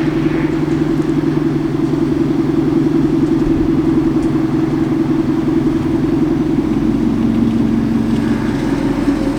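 Car engine running steadily close by, its low hum shifting slightly in pitch about two thirds of the way through.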